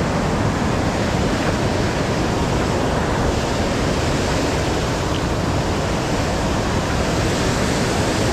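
A river in flood, high and muddy, rushing through rapids: a steady, even noise of churning water.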